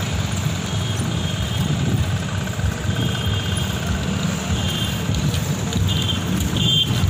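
Wind rumbling on the microphone of a moving bicycle, over steady road traffic noise. Short high chirps come and go several times.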